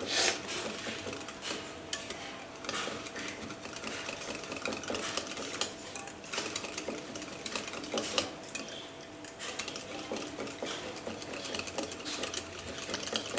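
Hand whisk beating a thick mixture of hung curd, condensed milk and cream in a bowl: fast, continuous clicking and scraping against the bowl.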